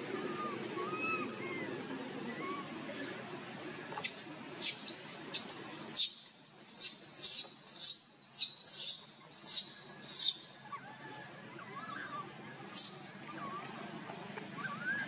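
Baby macaque screaming in a run of about fifteen short, very high-pitched squeals that start a few seconds in and come thickest in the middle, with a last one near the end.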